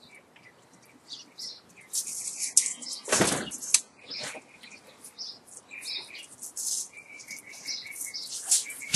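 Copper magnet wire, a bundle of twelve parallel strands, rustling and scraping as it is pulled through and pressed into the slots of a 10 hp electric motor stator during hand rewinding. Short high-pitched scrapes come and go throughout, with a louder knock about three seconds in.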